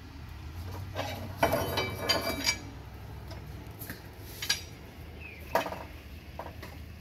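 Metal clinks and taps of a hand tool working on the forward exhaust mount as it is loosened: a quick run of ringing clinks about one and a half to two and a half seconds in, then a few single clinks.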